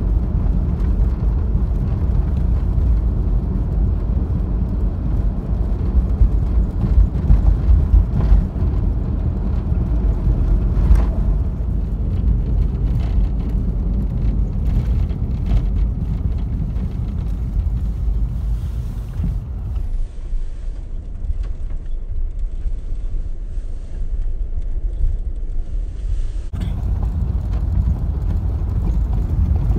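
Road noise inside a vehicle's cabin as it drives a rough country road turning to gravel: a steady low rumble of tyres and engine, with a run of louder jolts about six to eight seconds in.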